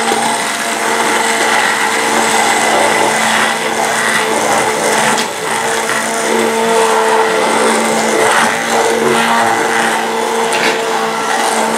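Hand-held immersion blender running steadily with its blade head down in a glass jug, whipping xanthan gum into water and chamomile infusion to thicken it into a gel. It gives a steady motor whine with a pitch that wavers slightly as it works.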